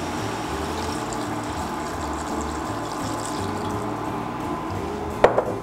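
Water poured steadily into a pot of browned mutton, onion and garlic, filling it for braising. A short knock near the end.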